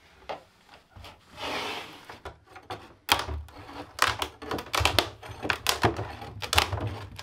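Countertop laminate being scored with a knife and pried off the plywood: a short scrape about a second and a half in, then from about three seconds on a fast run of sharp cracks and knocks, some with a dull thud, as the laminate snaps away.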